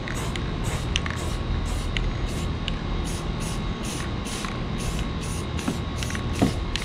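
Aerosol spray can hissing as rust-preventive paint is sprayed onto the bare cut metal edges of a van roof opening.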